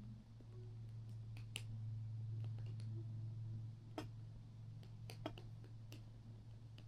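Scattered small clicks and taps, a dozen or so at uneven intervals, over a steady low hum.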